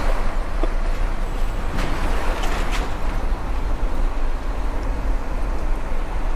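Steady low engine and road rumble of a truck driving along a highway. About two seconds in, a brief louder rush with a few sharp ticks rises over it.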